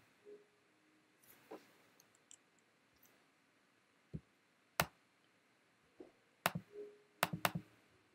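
Several sharp, isolated clicks of a computer pointing device over quiet room tone, most of them in the second half, two in quick succession near the end.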